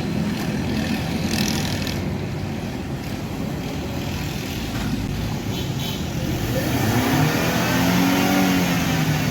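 Mercedes C200 petrol engine running after a cylinder-2 misfire was cured by drying water out of the spark plug well, now running evenly. The revs rise in the second half.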